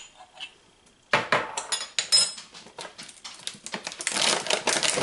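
Clinks and sharp knocks of kitchen things being handled, starting about a second in, then a plastic bag of whole almonds crinkling as it is opened near the end.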